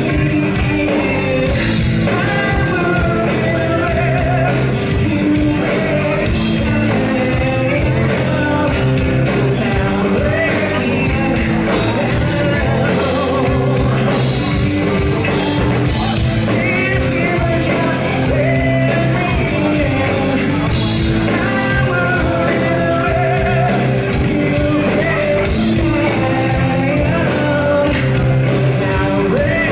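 A rock band playing live, with a male lead singer singing over electric guitar and bass, recorded from the audience.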